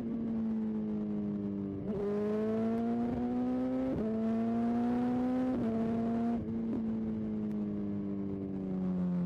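Motorcycle engine accelerating, its note climbing slowly through a few quick upshifts. About six seconds in the throttle closes and the engine note falls steadily as the bike slows.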